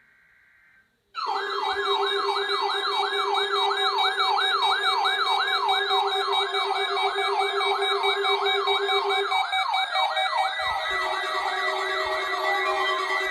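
Electronic siren in a rapid yelp, its pitch swinging up and down about three to four times a second, starting abruptly about a second in, over a steady lower tone that drops out briefly a few seconds before the end.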